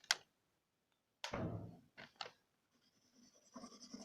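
Alcohol marker drawing on paper: a sharp click at the start, then scratchy strokes, and a thin high squeak from the felt tip near the end.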